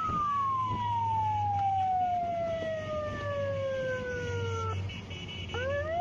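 Emergency siren wailing. Its high tone slides slowly down in pitch for nearly five seconds, breaks off, and then starts rising again near the end, over a low steady hum.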